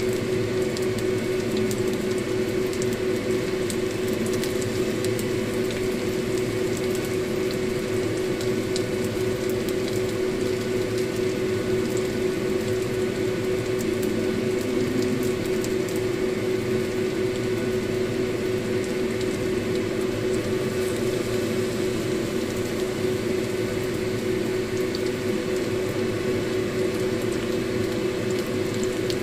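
Battered banana pieces frying in hot oil in a wok, a steady sizzle with fine crackling, over a steady hum.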